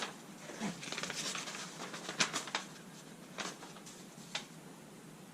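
Handling noises in a small workshop: a scattering of short, light clicks and taps with some rustling, most of them in the first four and a half seconds.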